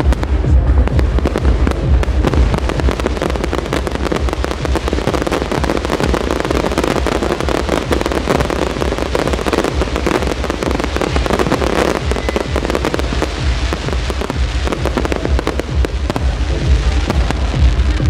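Fireworks display: shells bursting and crackling in dense, overlapping volleys, over loud music with a heavy bass.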